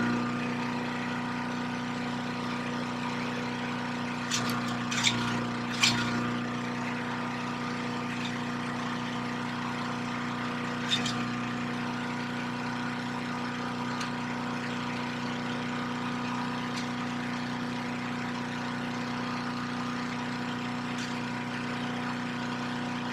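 A machine running with a steady, even hum. A few sharp knocks come about four to six seconds in, and one more around eleven seconds.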